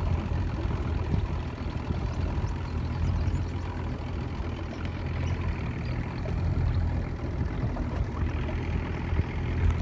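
A small boat's outboard motor running steadily, a low even hum with water and hull noise over it.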